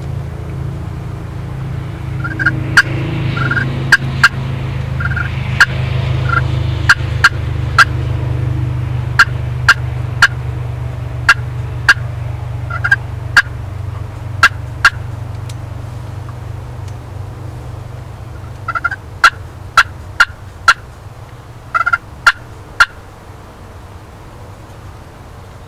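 Turkey calling: a long, uneven series of sharp, loud clucks mixed with short yelping notes, heavier at first, pausing in the middle, then a few more near the end. A steady low rumble runs underneath and fades away.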